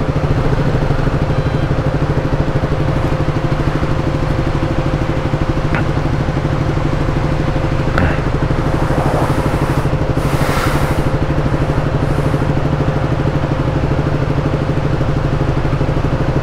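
KTM motorcycle engine running steadily at low, even revs, with a couple of light clicks and a short hiss about ten seconds in.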